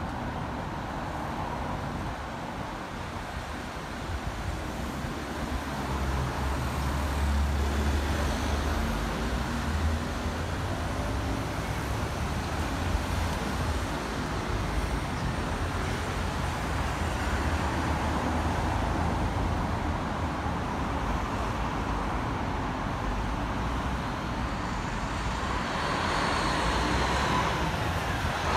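Steady road traffic, cars and trucks passing on a busy road, with a deeper rumble swelling about six seconds in and the noise building again near the end.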